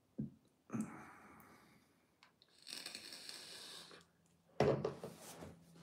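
Quiet sounds of a person vaping: a soft hissing draw on a vape pen about three seconds in, then a breathy exhale of the vapour near the end.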